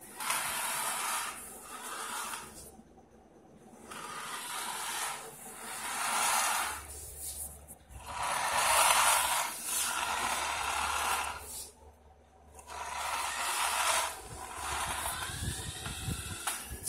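Small yellow plastic gear motors of a DIY obstacle-avoiding robot car whirring in spurts of a few seconds, with short pauses where the motors stop and start again.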